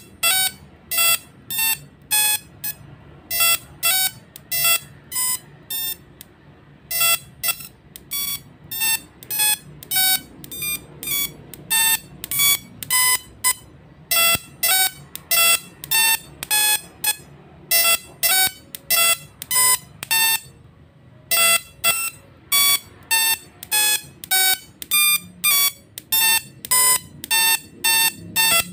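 Small musical Tesla coil playing a tune through its spark discharge: a run of short buzzy notes, about two or three a second, with brief pauses about six and twenty seconds in.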